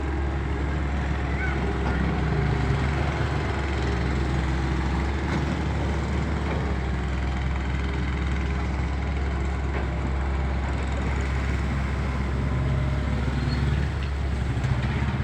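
Diesel engine of a floating backhoe (amphibious excavator) running steadily, its pitch wavering slightly.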